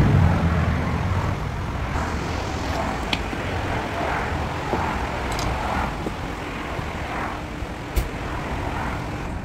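Steady background rumble with a few sharp light clicks, the loudest about eight seconds in.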